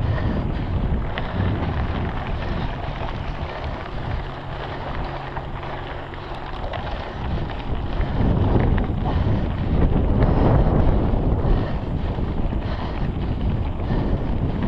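Wind buffeting the on-board camera microphone of a mountain bike ridden fast on a dry dirt trail, over the knobby tyres rolling on dirt and stones. A low steady hum sounds for a couple of seconds near the middle, and the noise grows louder from about halfway through.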